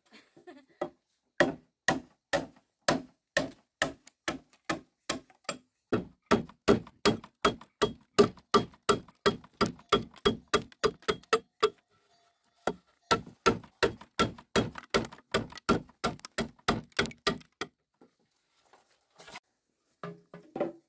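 Machete blade chopping into green bamboo, a quick run of sharp strikes about two to three a second. There is a short break past the middle, then a second run that stops with a few scattered knocks near the end.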